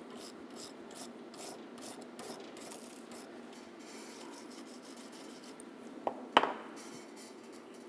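Hand wire brush with steel bristles scrubbing a hot, freshly TIG-brazed copper pipe joint, brisk scratchy strokes about three a second, clearing off the surface oxides raised by the heat. About six seconds in come two sharp knocks.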